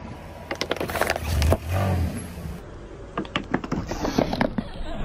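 Car tyre rolling over crushed plastic soda bottles on gritty asphalt: a run of sharp plastic cracks and crackles, with a brief low rumble about a second and a half in.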